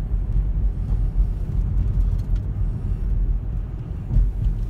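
Low, steady rumble of a minivan running, heard from inside the cabin.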